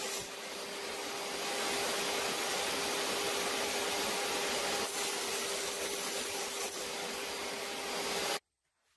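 Table saw running with a steady whine while its blade cuts a thin cedar strip at a 30-degree bevel; the sound cuts off suddenly near the end.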